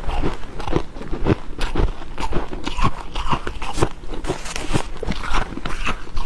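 Close-miked biting and chewing of dry freezer frost: a dense run of irregular squeaky crunches, several a second.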